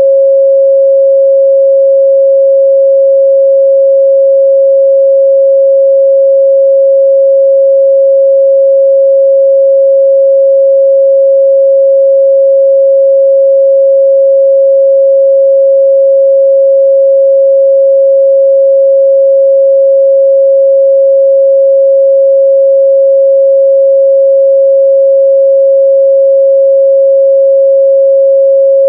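A pure 545 Hz sine-wave test tone, one steady unbroken pitch at a constant loud level, used for checking the midrange response of speakers and headphones.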